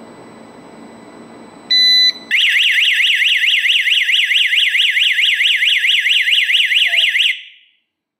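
DY-G10A GSM home security alarm sounding: a single short beep about two seconds in, then a loud, rapid warbling siren sweeping up and down about four times a second. The siren stops abruptly about seven seconds in.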